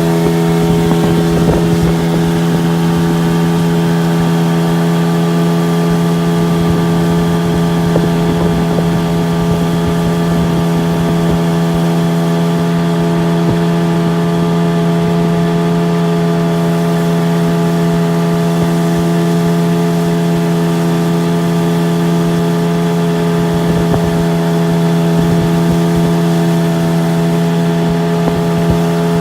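Outboard motor on a 14-foot jon boat running at a steady, unchanging speed: an even, loud drone, with wind buffeting the microphone in gusts.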